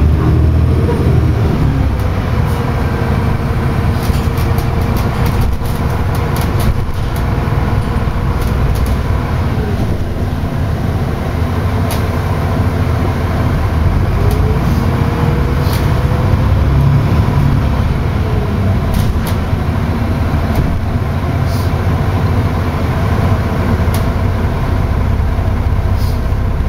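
Engine drone of a double-decker bus heard from inside the upper deck, with a faint wavering whine and scattered small clicks and rattles from the bus body and fittings.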